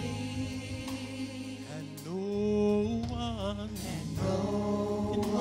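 Gospel worship song sung by a small vocal group over steady, held low accompaniment notes.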